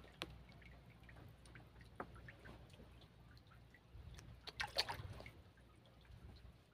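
Faint water dripping and splashing with scattered light knocks, and a louder run of splashes about five seconds in.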